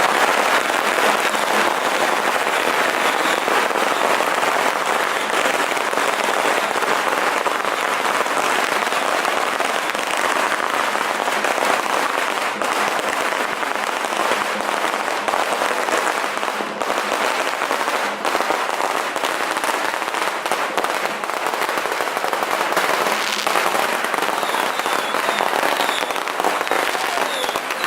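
Strings of firecrackers going off in a dense, continuous crackle.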